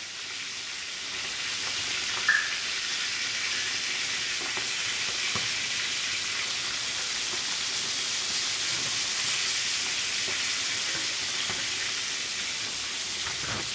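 Masala-coated fish pieces shallow-frying in oil in a flat pan: a steady sizzle that swells about a second in, with a light tap or two as the tongs turn the pieces.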